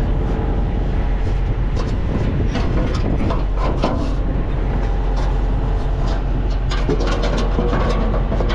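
A heavy truck's diesel engine idling with a steady low rumble, with scattered clicks and knocks of a body panel being handled and fitted.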